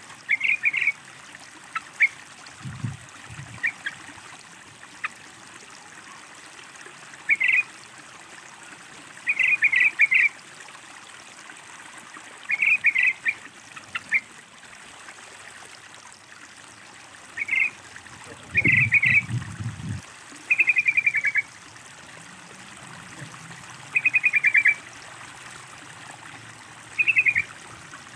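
Yellow-vented bulbul (trucukan) calling: short bubbly chattering phrases every few seconds, a couple of them quick rattling trills, over steadily trickling water. Two brief low thumps, one a few seconds in and one past the middle.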